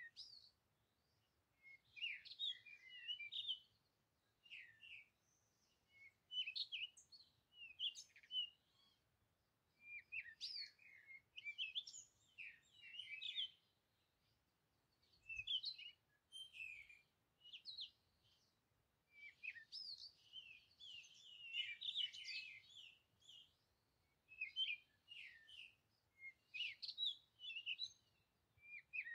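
Birds chirping and singing in short bursts of quick notes, a few seconds apart.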